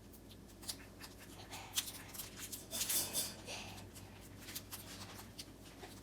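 Faint rustling and crinkling of plastic candy wrappers being handled and peeled off, with scattered small clicks and a louder rustle about three seconds in.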